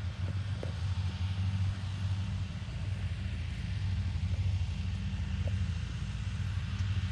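A motor vehicle's engine running with a steady low drone.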